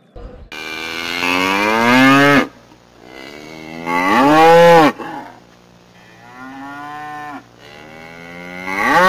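Cow mooing four times: long, drawn-out moos that rise and fall in pitch, the third one quieter than the rest.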